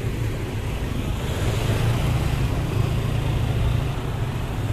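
Slow, congested street traffic of cars and motor scooters: a steady engine and road rumble, with one vehicle growing louder as it passes around the middle.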